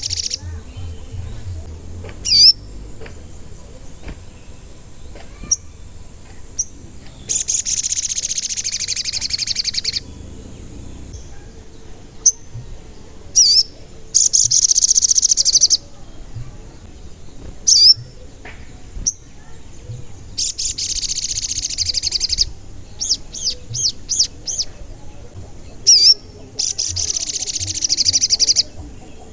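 A sogon (crimson sunbird) in full song: scattered single sharp, high chirps, and four rapid high trills of about two seconds each, the first some seven seconds in and the last near the end.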